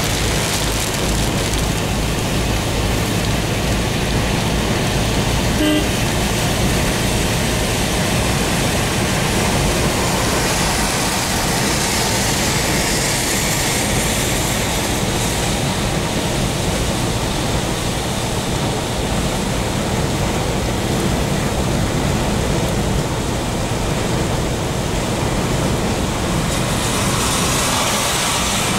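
Steady road noise heard from inside a moving car on a wet highway in rain: tyres on the soaked road surface over a low engine rumble. A higher hiss swells twice, around the middle and near the end.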